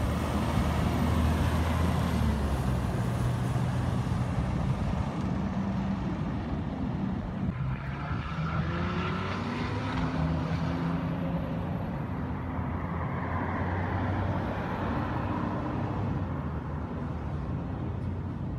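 Front-loader garbage truck's diesel engine running as it drives away and accelerates, the engine note stepping up and down with gear changes.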